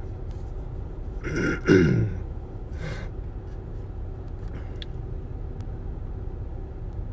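A man clears his throat in two short bursts a little over a second in, over the steady low rumble of a car running.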